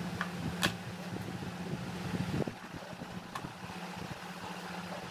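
A hot soldering iron scraping and melting through the plastic of a car fog-lamp housing, making a few short sharp clicks over a steady low hum.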